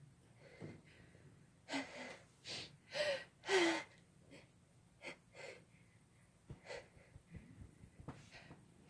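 A person's breath catching in a series of short, sharp gasping inhales as a sneeze builds but does not yet come; the loudest, voiced 'ah' gasp falls about three and a half seconds in, followed by fainter sniffs and breaths.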